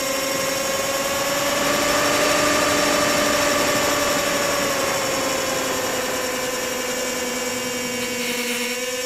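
Onboard sound of a HobbyZone Firebird Stratos RC plane's twin electric motors and propellers droning steadily under wind rush. The drone's pitch rises a little in the first couple of seconds and then eases slowly down.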